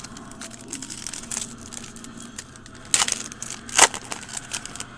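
A trading card pack's wrapper crinkling and being torn open by hand, many small crackles with two louder tearing crackles about three and four seconds in.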